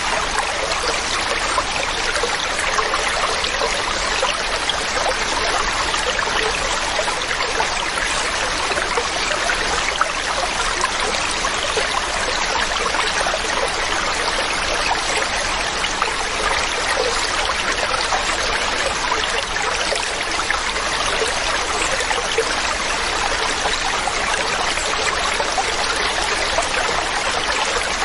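Waterfall: falling water rushing and splashing in a steady, unbroken wash of sound.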